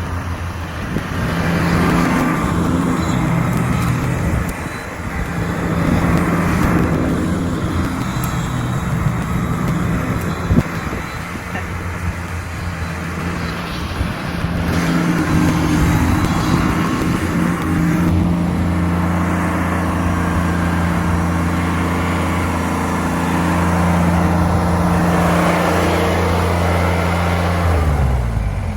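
Kubota BX2380 compact tractor's three-cylinder diesel engine running steadily with its front-mounted BX2822 snowblower, the loudness swelling and easing; near the end the engine winds down and shuts off.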